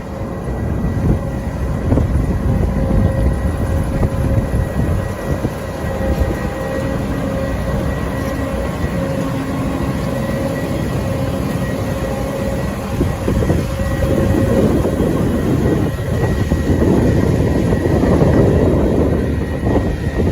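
Heavy potato-harvesting farm machinery running steadily: a diesel engine with the rattle and clatter of working parts, and a steady whine over it.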